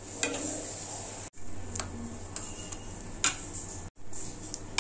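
Metal spoon stirring thick semolina and yogurt batter in a steel bowl, knocking against the bowl in a few sharp clicks over a low steady hum. The sound drops out briefly twice.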